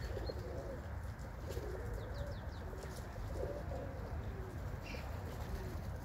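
Domestic pigeons cooing, short low coos repeating one after another, over a steady low rumble.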